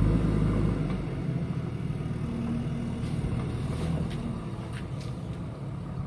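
JCB backhoe loader's diesel engine working under load, loudest for about the first second, then easing to a steadier, lower running note.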